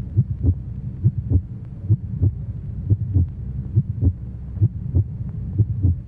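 Heartbeat sound effect: a steady lub-dub double thump, about one pair a second, over a continuous low hum.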